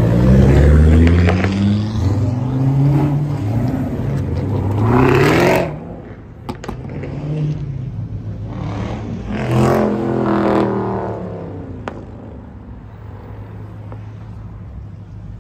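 Car engine revving hard as the car accelerates away, its pitch climbing in repeated rising sweeps before stopping abruptly about six seconds in. A second burst of rising revs comes about nine to eleven seconds in.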